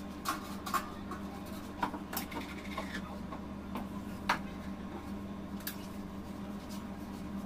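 Steady low hum with a few short, light taps and scrapes as a cake board is turned and shifted on a stone counter, the loudest about four seconds in.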